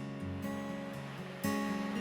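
Background music on acoustic guitar: plucked notes changing about every half second, with a stronger struck chord about one and a half seconds in.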